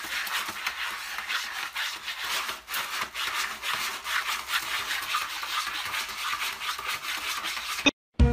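A cat digging in a litter box, its paws scraping rapidly through stick-shaped pellet litter and across the tray floor: a fast, continuous run of scratching strokes that stops abruptly near the end.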